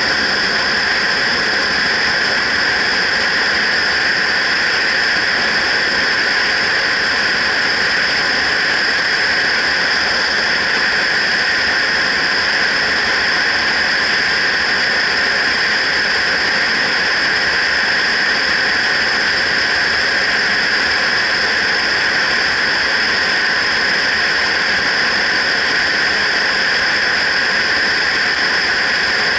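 Steady rush of wind and road noise on a helmet-mounted action camera on a motorcycle riding at road speed, a constant loud hiss with no change.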